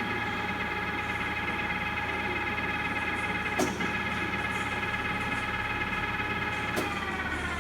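Takisawa TAL-510 lathe's geared headstock whining as the spindle runs at steady speed, with a sharp click about three and a half seconds in; near the end another click comes and the whine falls in pitch as the spindle slows.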